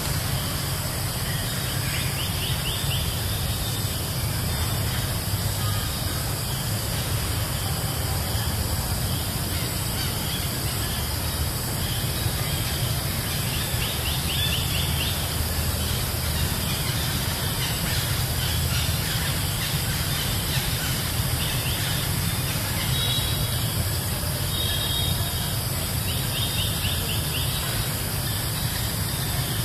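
Steady outdoor ambience: a constant low rumble and an even hiss, with short high chirping trills breaking in several times.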